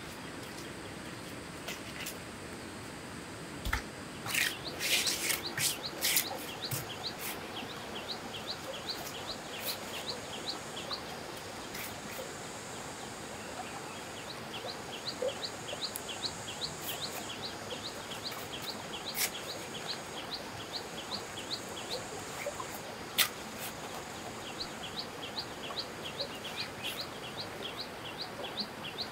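A bird repeats short, high chirps, about three a second, in several long runs, over the steady rush of a stream. A few sharp knocks of stones being set come around four to six seconds in.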